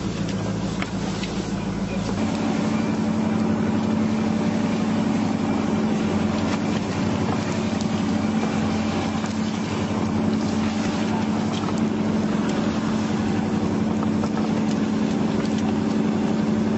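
Fishing boat's engine running steadily, with a steady low drone; its note changes about two seconds in.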